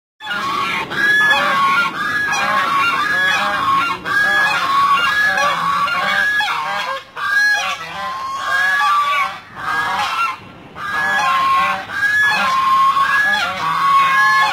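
A small flock of domestic geese honking loudly and repeatedly, several birds calling over one another with only brief lulls.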